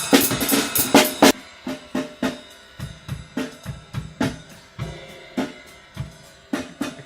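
Acoustic drum kit being played during a studio sound check: loud cymbal-heavy hits for the first second or so, then a softer, steady groove of drum strikes with the room ringing after each hit.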